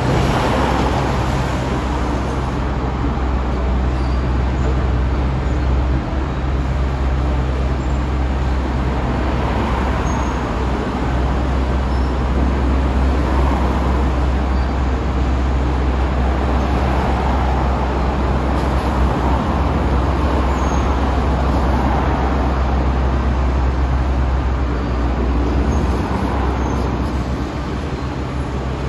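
Heavy diesel engines of a Wirtgen road milling machine and its truck tractor run steadily with a deep low hum. Passing cars swell and fade as a rush of road noise every few seconds.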